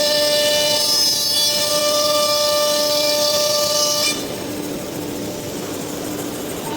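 Blue Elephant ELECNC1836 CNC nesting router running, its spindle giving a steady high-pitched whine with several tones over a machine hiss. About four seconds in, the whine drops away and only a quieter steady hiss remains.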